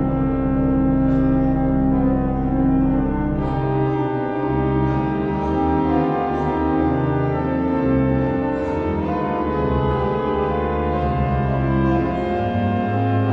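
Background music: a slow classical piece of long held notes and chords, changing every second or two.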